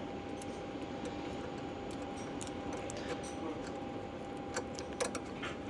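Faint, sparse clicks and ticks of small metal fittings being handled by hand while an oil line is connected to a union on a CFM56-5B engine's low oil pressure warning switch, over a steady background hum with a thin high tone.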